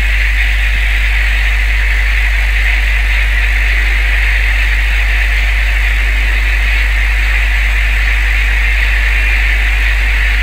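Boat engine running steadily at sea: a constant low drone with a steady hiss over it.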